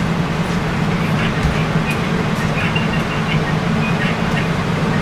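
A steady low mechanical hum, like a motor or engine running without change.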